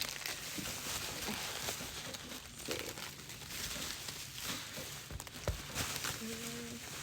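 Packaging crinkling and rustling as a parcel is slowly unwrapped by hand.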